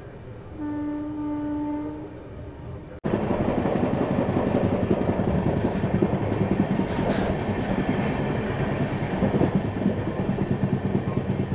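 Train horn sounding once, a single steady note lasting about a second and a half. After a sudden cut, the train running at speed: a loud, steady rumble with wheels clattering over the rail joints.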